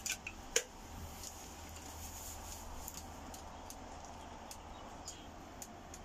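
Stick fire burning in the base of a Ghillie Kettle as its water heats towards the boil: scattered faint crackles and ticks over a steady low hiss, with a sharper click about half a second in.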